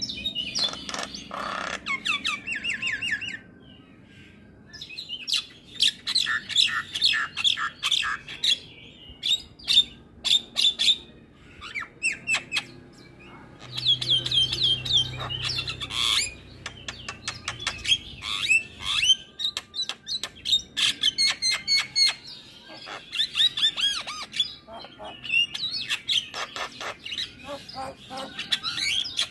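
Caged Javan myna singing at full tilt: a fast, varied chatter of clicks, whistled slides and harsh notes, in bursts of a few seconds with brief pauses between them.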